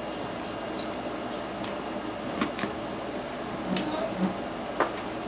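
Crab being eaten up close: scattered sharp clicks and cracks of shell and a few soft mouth smacks, over the steady hum of an air conditioner.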